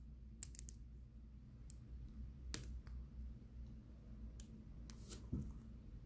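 Faint, irregular metallic clicks of a lock pick working the pins of a Blossom BC04 pin-tumbler padlock held under heavy tension: a quick cluster of ticks near the start, then single clicks every second or so.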